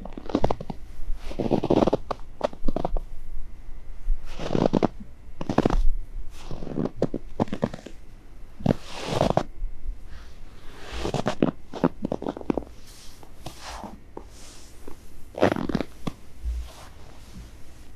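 Footsteps of a boot crunching into fresh powder snow, slow and uneven, one step every second or two.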